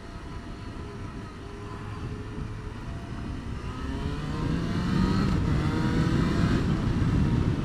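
Motorcycle engine accelerating as the bike is ridden along, its pitch rising and the sound growing louder from about four seconds in, heard from on the bike.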